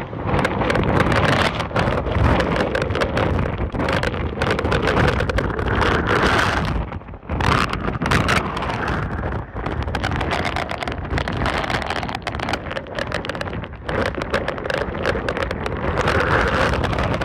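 Category 4 hurricane winds buffeting the microphone in loud, continuous gusts, with driving rain in the roar. There is a brief lull about seven seconds in.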